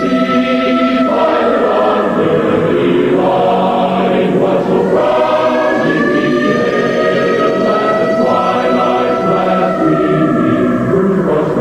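Choir singing sustained notes, with a long wailing tone that slowly rises and then falls near the end.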